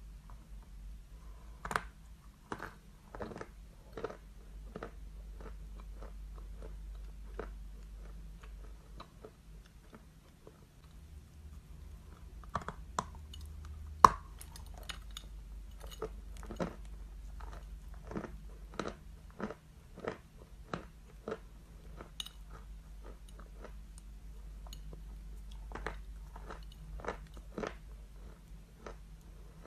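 Close-up biting and chewing of a chunk of eating chalk: a string of sharp, dry, irregular crunches, with the loudest bite about fourteen seconds in.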